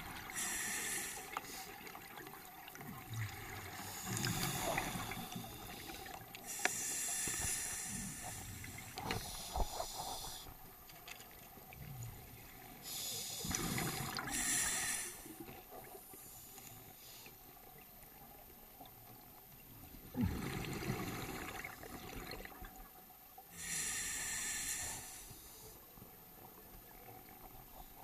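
Scuba diver breathing through a regulator underwater: slow breaths a few seconds apart, each a sharp hiss of inhalation through the demand valve and a low bubbling rumble of exhaled air.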